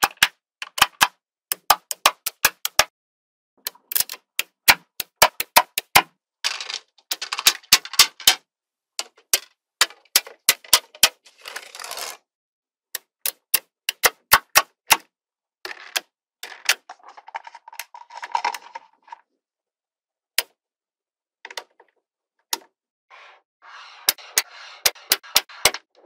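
Small magnetic balls snapping together in sharp clicks, coming in quick clusters, with stretches of a softer rattle between them as the balls shift against each other.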